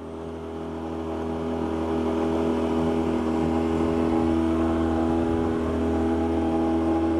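Boat's outboard motor running steadily at trolling speed, an even engine hum that grows a little louder over the first couple of seconds and then holds.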